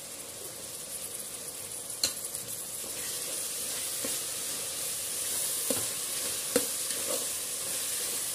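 Vegetables and ginger-garlic paste sizzling in hot oil in a metal pot, a steady sizzle that grows a little louder. A metal ladle stirs them, knocking and scraping against the pot a few times.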